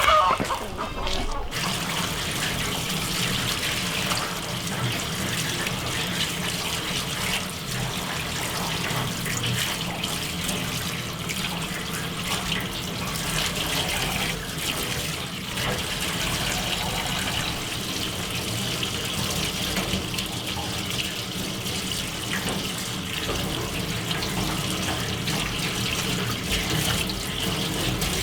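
Water running steadily, as from a tap.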